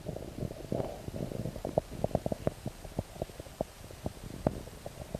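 River water heard through a submerged camera: a low, muffled gurgle with irregular sharp pops and clicks, several a second.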